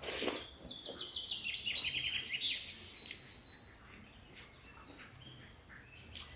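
A bird singing a rapid trill of short high notes that falls in pitch over about two seconds, with a few other chirps and some sharp clicks around it.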